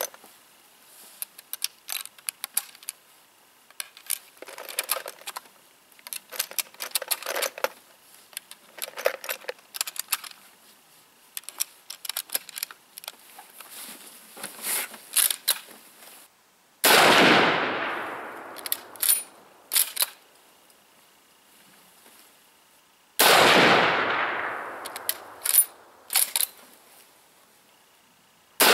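Two shots from a Mosin-Nagant 91/30 rifle in 7.62x54R, about six seconds apart in the second half, each with a long fading echo and followed a couple of seconds later by sharp clicks of the bolt being worked. Before the first shot, small clicks and rattles of the rifle being handled.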